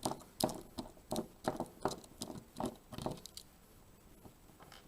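Light clicks and taps from handling a picked-open pin-tumbler rim cylinder lock and small tools, about three a second, stopping a little over a second before the end.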